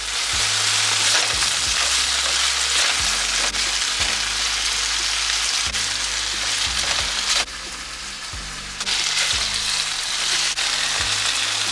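Food sizzling in a hot frying pan, a dense steady hiss that drops back briefly about two-thirds of the way through.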